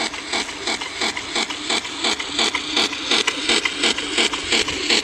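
A 1/6 scale remote-control model car running forward and reverse, its small motor and gears making a steady mechanical clatter with a regular pulse of about four beats a second.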